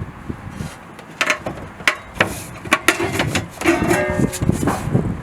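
Light plucked-string background music, with sharp knocks and clicks scattered through it.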